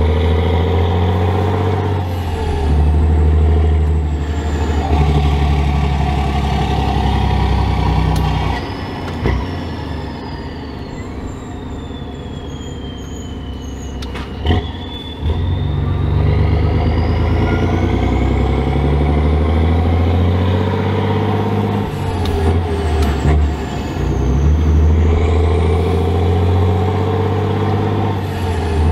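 A Volvo F16 Intercooler truck's inline-six diesel engine pulling at low speed, heard from inside the cab as a steady low drone. About a third of the way in the engine eases off and goes quieter for several seconds, while a high whistle falls in pitch. Just after halfway a short sharp sound marks the engine pulling again, and the whistle rises as it picks up.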